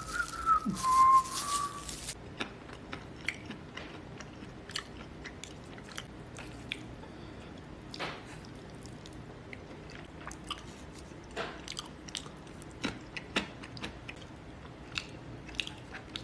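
A short bright sound with a falling whistle-like tone for the first two seconds, then irregular soft clicks and crunches close to the microphone, one to three a second, much like chewing.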